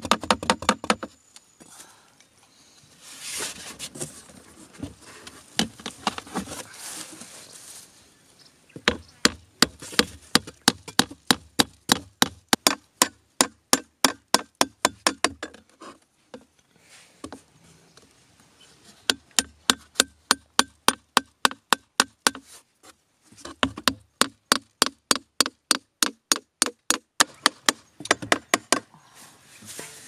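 A knife blade cutting into a cardboard box, with quick, sharp strokes about three or four a second, coming in runs broken by short pauses. About three to eight seconds in, the strokes give way to a rougher, scratchy scraping.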